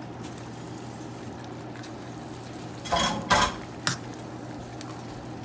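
Dishes and a utensil clinking and clattering in the kitchen, three short knocks close together about three to four seconds in, over a steady low hum.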